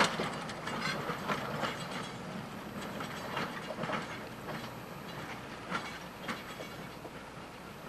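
Replica Lafayette steam locomotive and its open double-deck coaches rolling away on the track, with irregular sharp clicks from the wheels over the rail joints, slowly fading as the train moves off.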